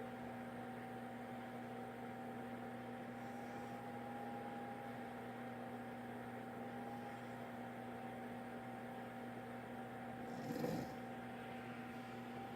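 A steady electrical hum, with one short, rattling snore from a sleeping man about ten and a half seconds in.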